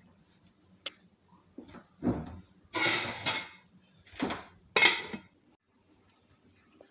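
Cookware clattering: a pot and its lid clink and scrape in several short bursts, the loudest about three and five seconds in.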